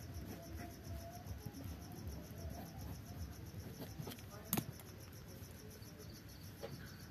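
Pen scratching faintly on paper as it writes a short line, with one sharp tap about four and a half seconds in. A faint, steady high-pitched chirring runs underneath.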